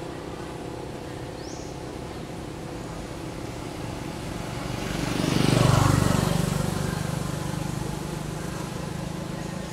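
A motor vehicle passing: a steady engine hum that swells to its loudest about six seconds in, then fades away.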